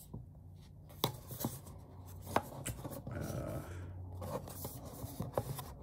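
Hands handling and turning a small cardboard product box: scattered sharp clicks and taps, with soft rubbing of fingers on the cardboard a little past the middle.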